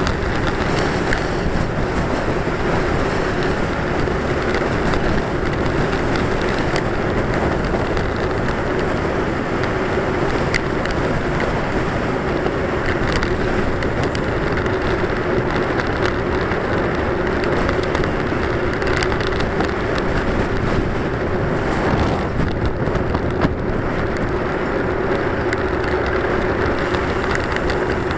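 Steady wind rush on a bicycle-mounted camera's microphone while riding along a paved road, with rolling road noise and a steady low hum underneath.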